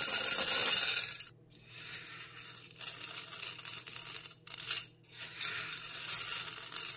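Dried split dal grains poured onto a ceramic plate, loudest in the first second. Then handfuls are scooped up and let fall back through the fingers onto the plate and the pile, making lighter, uneven patters and clicks.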